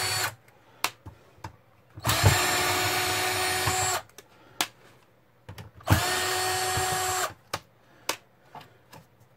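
Cordless drill-driver backing screws out of a monitor's sheet-metal chassis, its motor running in steady spells: one cutting off just after the start, then two more of about two seconds and a second and a half. Light clicks and taps come between the runs.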